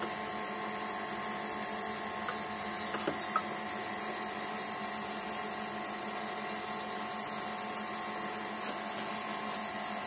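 Steady whirring hum of an A/C service vacuum pump running, holding the car's air-conditioning system under vacuum. A few light clicks come about two to three seconds in.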